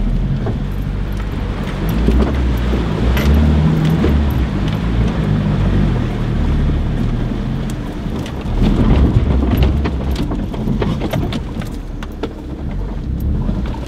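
Mitsubishi Pajero Junior 4x4 in four-wheel drive pushing through a deep water-filled rut and climbing out onto a rocky track: the small engine working hard under load, with splashing water and repeated knocks and clatter from stones and the body and suspension.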